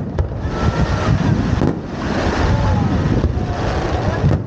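Wind buffeting the microphone outdoors, a loud steady low rumble, with faint voices and a few faint pops.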